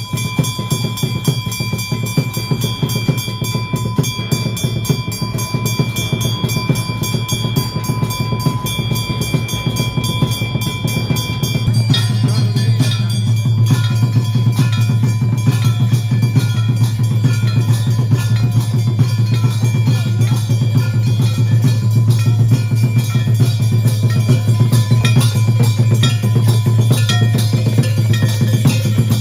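Fast, dense drumming with a few steady ringing tones held over it, typical of drums and bells played during a puja. About twelve seconds in it grows louder and fuller, with a heavier low drum.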